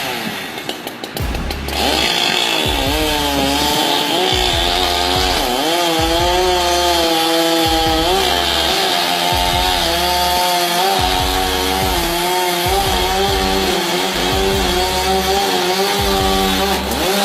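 Chainsaw running and cutting into a tree trunk, its engine note wavering and dipping repeatedly as it loads up in the wood. It starts loud about two seconds in.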